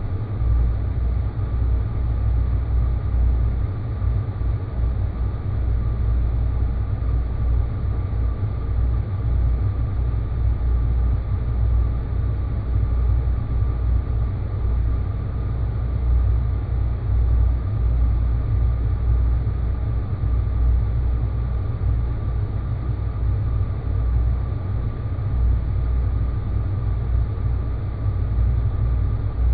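Space-planet ambience sound effect: a steady, deep rumbling drone with a faint thin tone held above it.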